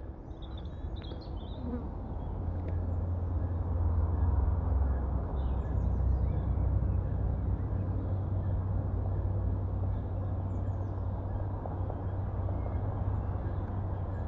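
Outdoor ambience: a steady low rumble that fades in over the first few seconds, with a few faint high chirps now and then.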